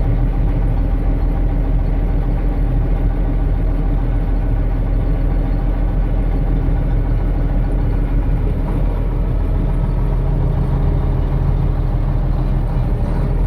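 Tractor engine running steadily while driving a corn picker in the field, a constant deep mechanical hum. The low tone shifts slightly about ten seconds in.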